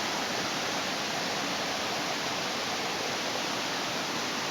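Steady rush of falling water from a waterfall, an even unbroken roar.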